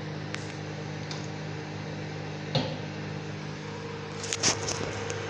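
Microwave oven running with a steady hum, with a few short clicks and knocks: one early, one about two and a half seconds in, and a small cluster near the end.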